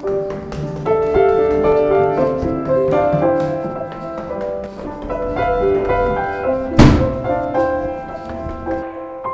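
Instrumental background music, a melody of short notes that keeps changing. One heavy thump about seven seconds in is the loudest sound.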